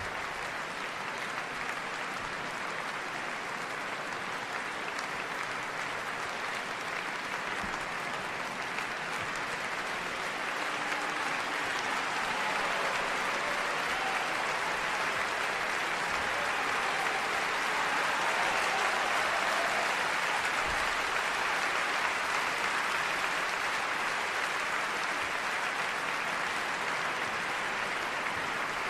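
Long, continuous applause from a crowd, a dense even clatter of clapping that swells a little about two-thirds of the way through.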